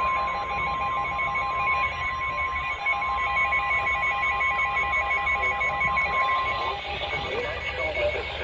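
Weather-radio warning alarm tone: a single steady, high-pitched tone held for several seconds that cuts off about two-thirds of the way through, heard through a radio receiver over static hiss, with a fainter pulsing beep underneath. The tone signals that a severe weather warning message follows.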